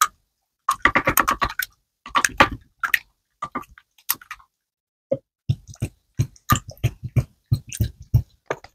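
Runny yellow glue slime being stirred with a spoon in a glass bowl while borax activator is mixed in: wet squelching and sticky clicks in short bursts, coming faster and denser in the second half.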